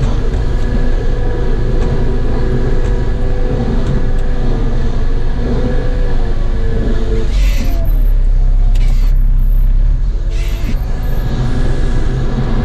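Cat 914G wheel loader's diesel engine running, heard from inside the cab with a steady drone. About seven seconds in it grows louder and heavier for a couple of seconds, with three short hisses.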